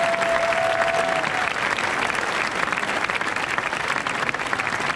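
Large audience applauding with dense, steady clapping. A single held high note sounds over it and ends about a second in.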